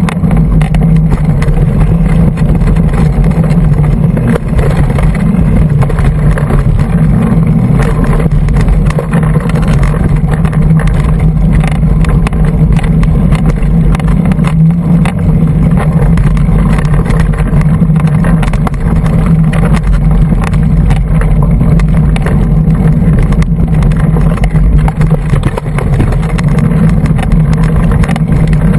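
Wind rumble and trail noise picked up by a GoPro action camera on a hardtail mountain bike riding rough singletrack: a steady low rumble with frequent clicks and rattles from the bike and the camera mount over bumps.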